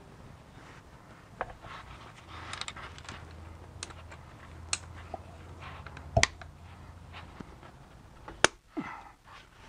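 Scattered metal clicks and knocks as a BMW E46 manual-transmission shift linkage rod is handled and fitted into place, with two sharper knocks about six and eight and a half seconds in.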